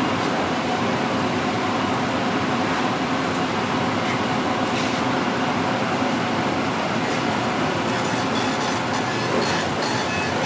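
Steady din of a commercial kitchen at work, a constant rushing noise with a faint hum under it, and light clicks and clinks of utensils near the end.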